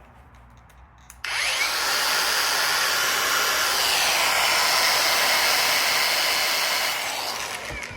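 Cordless brushless angle grinder switched on about a second in and run at its top speed, around 9,500 RPM, for about six seconds, then winding down near the end.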